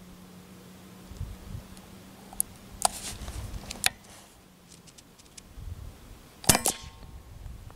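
Daystate Mk4 pre-charged pneumatic air rifle firing once about six and a half seconds in: a sharp crack, a second one a fraction of a second later, and a brief ring. Before it come a few faint clicks and a faint low hum that stops about five seconds in.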